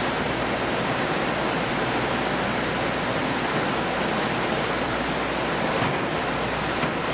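Steady rushing noise of running or spraying water, even and unbroken, with a faint tick or two near the end.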